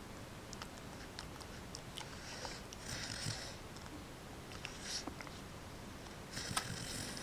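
Sleeping dog snoring: three slow, breathy snores about every two seconds, with faint clicks in between.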